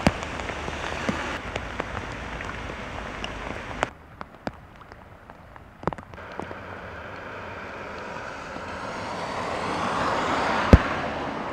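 Steady rain hiss with scattered drips, broken by abrupt changes in the background about four and six seconds in. From there a hiss of tyres on wet road swells as a vehicle approaches, loudest near the end, where there is one sharp knock.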